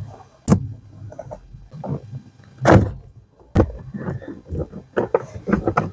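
A series of knocks and clicks from parts being worked loose by hand while the squeaking small motor is taken out of a Volkswagen Golf. The loudest knock comes a little under three seconds in.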